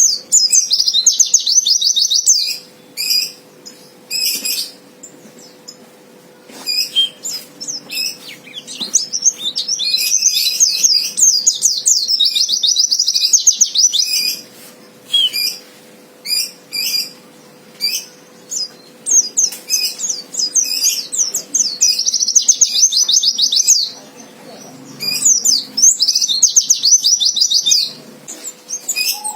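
A white-eye (pleci) in fighting mode, singing in long, rapid, high twittering bursts with short chirps between them. This is the aggressive song of a 'fighter' male, the kind used to provoke rival white-eyes into singing.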